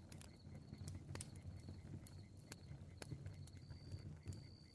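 Bonfire crackling faintly: irregular sharp pops and snaps, a few a second, over a low steady rumble of the flames.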